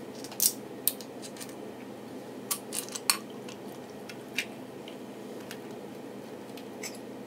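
A few short, sharp clinks and taps of a glass bottle, a drinking glass and cutlery, mostly in the first half, over a steady low hum.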